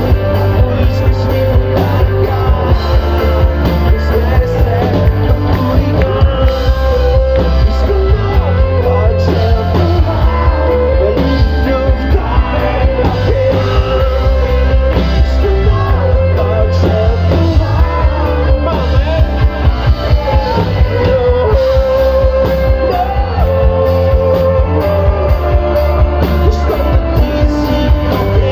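Live rock band playing loudly: electric guitars, bass, drums and acoustic guitar, with a male lead singer singing over them.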